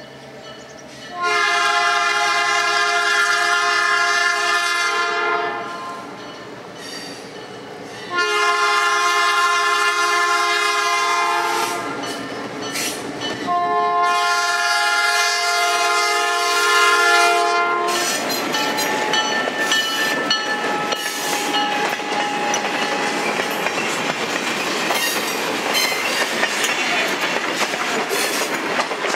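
Diesel locomotive MKT 142 sounding its multi-tone air horn in three long blasts as it nears a grade crossing. From about eighteen seconds in, the locomotive and its passenger coaches roll past close by, with steady wheel rumble and clickety-clack over the rail joints.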